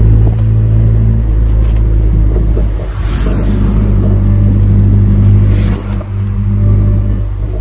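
A vehicle engine running steadily while on the move, a constant low hum, with road and wind noise. Two brief whooshes of noise come about three and six seconds in.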